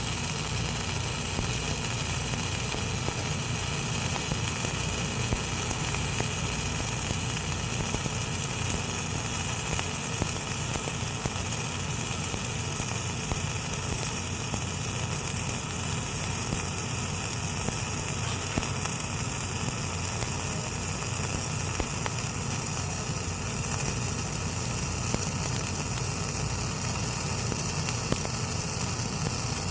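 Welding arc burning steadily without a break as a weld joint is filled.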